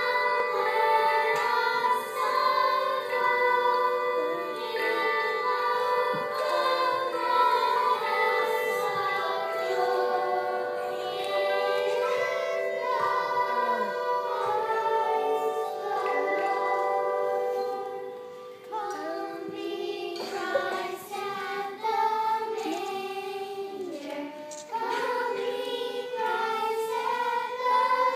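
Children's choir singing a song together, with a short break between phrases about two-thirds of the way through.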